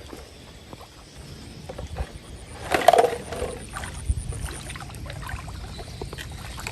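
Water sloshing and splashing, with a louder burst of splashing about three seconds in.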